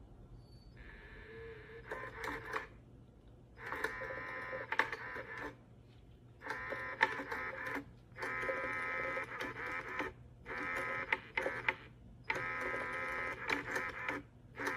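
Motorized electronic cat toy running in stop-start spells: a small motor's steady whine with clicks and rattles, about six runs of one to two seconds each, with short pauses between.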